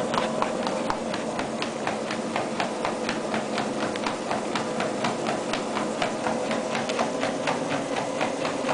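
A husky puppy's paws striking a moving treadmill belt at a steady trot, about four footfalls a second, over the steady hum of the treadmill motor.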